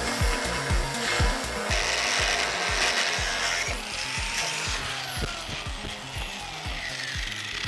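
Angle grinder cutting into a steel truck frame rail: a harsh grinding hiss that is loudest about two seconds in. Around the middle the grinder comes off the metal and its disc winds down in a falling whine. Background music with a steady thumping beat plays underneath.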